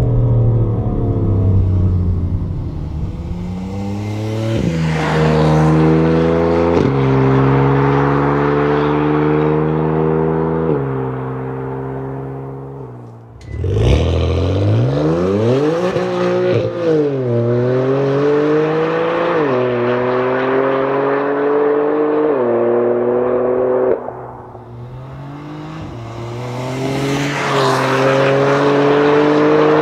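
BMW F8x M3/M4's S55 twin-turbo straight-six through an AWE Tuning non-resonated SwitchPath cat-back exhaust, pulling hard through the gears. The exhaust note climbs in pitch in each gear and drops sharply at each quick upshift, several times over, with one brief lift-off about halfway through.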